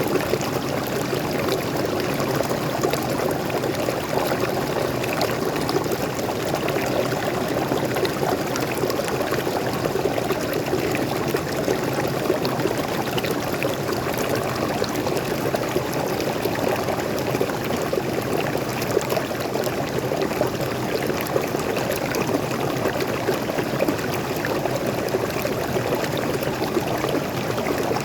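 Fresh water of a small forest waterfall and stream flowing steadily: an even, unbroken rush of water.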